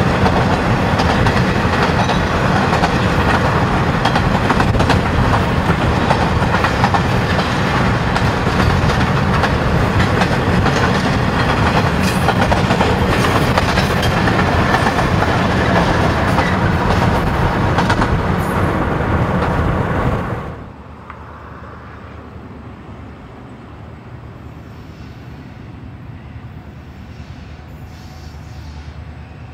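Container freight train's wagons clattering past a car driving alongside, in a loud steady roar of wheels, road and wind noise with rapid clicks of wheels over the rail joints. About two-thirds of the way in it drops sharply to a much quieter, steady low rumble of distant diesel locomotives approaching.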